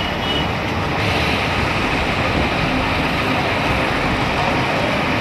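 Steady rushing noise of a fire tender at work: its engine-driven pump running while a hose sprays water onto burning grass beside a railway track.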